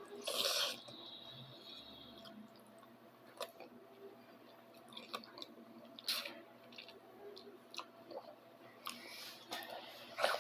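Faint chewing of instant noodles, with scattered small clicks and short noisy bursts and a brief louder noise about half a second in.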